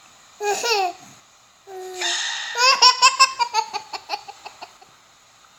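Baby laughing: a short high squeal about half a second in, then a longer laugh that breaks into a run of quick giggles, several a second, fading out.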